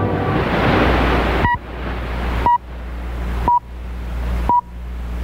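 BBC Greenwich Time Signal pips heard over shortwave radio: four short, high beeps one second apart. A steady shortwave hiss runs underneath; it is heavy for the first second and a half, then dips after each pip and creeps back up.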